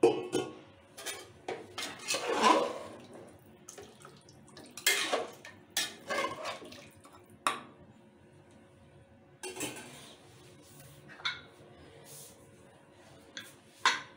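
Metal ladle stirring a watery curry in an aluminium pressure cooker, scraping and clinking against the pot in irregular knocks, with a short quiet stretch a little past the middle.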